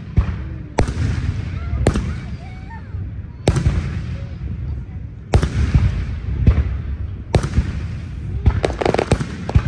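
Aerial firework shells bursting overhead: sharp bangs about every one to two seconds, each followed by a rumbling echo, with a quick cluster of bangs near the end.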